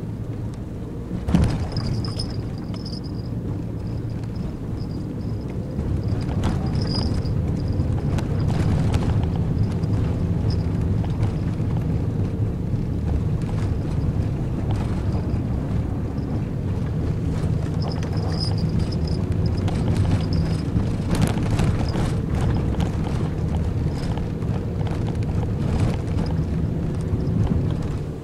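Nissan NV200 van's engine and road noise heard inside the cabin while driving, a steady low hum. A single knock about a second in, and the engine gets louder about six seconds in.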